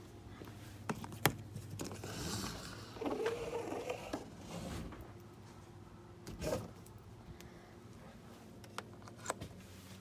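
Handling noise from a shore-power extension cord being untangled and carried over paving stones: scattered clicks and knocks, a rustling stretch a couple of seconds in, over a low steady hum.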